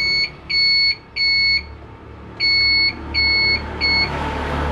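Beeping turn-signal flasher (a flasher relay with a built-in buzzer, fitted in place of an audio-pilot indicator beeper) on a Yamaha F1ZR, beeping in time with the turn signals to show they are on. It gives six steady high beeps, each about half a second long, in two runs of three with a short pause between, over a low steady hum.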